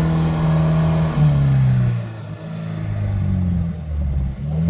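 Off-road 4x4's engine pulling on a slippery mud climb without much throttle, which an onlooker takes to be in high range. The engine note holds steady, drops in pitch about a second in, and rises again near the end.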